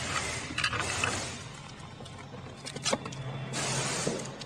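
Workshop ambience from a car-garage scene in a TV advert: a steady hiss and low hum with a few sharp metallic clicks of tools under the bonnet.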